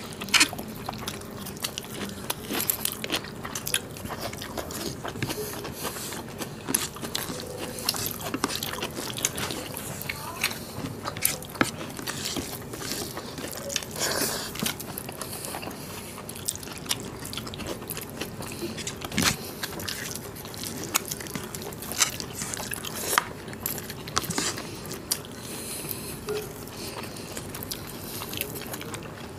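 Eating sounds from two people eating mutton curry and rice by hand: chewing and biting with wet mouth smacks, and fingers mixing rice on the plates.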